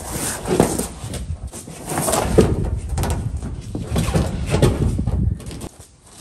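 A rubber-topped foam truck bed mat being handled and laid into a pickup bed: irregular thumps, knocks and scuffing, which drop away about five and a half seconds in.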